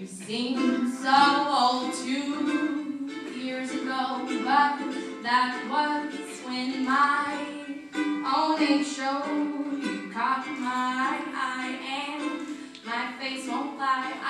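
A woman singing a song into a microphone while strumming a ukulele.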